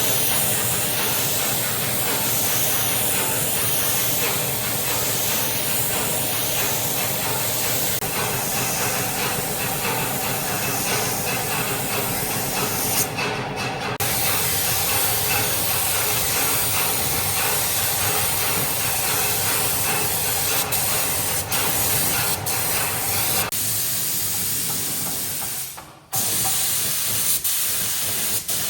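Loud, steady hissing, like air or spray rushing out, breaking off briefly twice.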